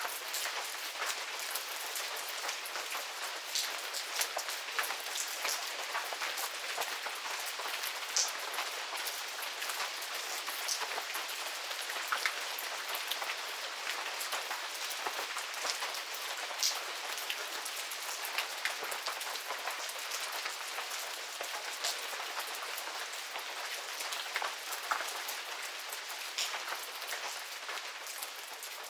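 Steady medium rain falling in a garden, an even hiss with many individual drops ticking on surfaces, beginning to fade near the end.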